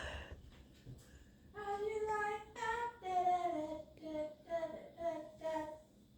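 A child's voice singing a short wordless tune of several held notes, starting about a second and a half in.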